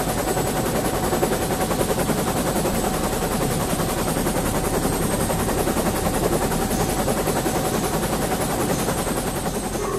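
Military helicopter's rotor chopping steadily in rapid, even beats, held without a break.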